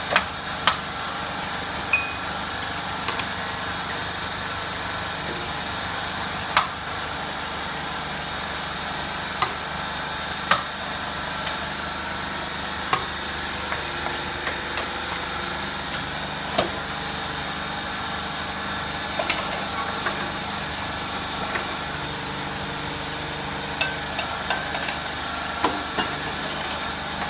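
Rempeyek-making machine running with a steady motor hum, broken by sharp, irregular clicks and knocks every second or few.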